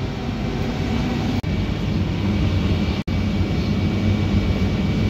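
Tractor engine running steadily, heard from inside the cab, with two sudden breaks about one and a half and three seconds in.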